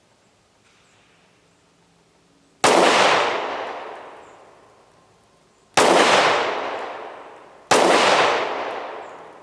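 Three shots from a Kel Tec PR-5.7 pistol in 5.7x28mm, the first about two and a half seconds in and the next two about three and then two seconds apart. Each shot is followed by a long echoing tail that fades away.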